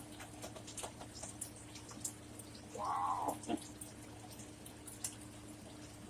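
Close-up eating sounds: small wet mouth clicks and chewing of a crisp microwaved cheese taco shell, with one louder crunch about three seconds in.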